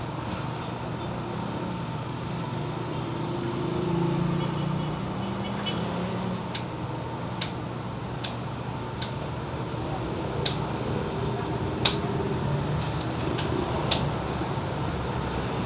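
Barber's scissors snipping hair over a comb: sharp snips at uneven spacing, roughly one a second, starting about six seconds in. Under them runs the steady hum of an electric fan.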